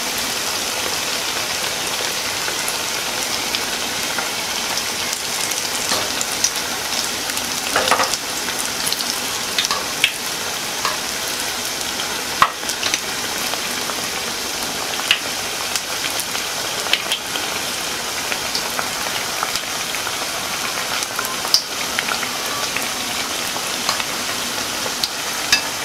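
Wheat-flour pakoras deep-frying in hot oil in a pan: a steady sizzle with scattered sharp clicks and pops.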